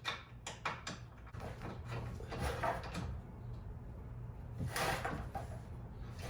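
Short metallic clicks and clunks, then scraping, as a new lower control arm is wrestled by hand into place and will not line up with its mounting hole.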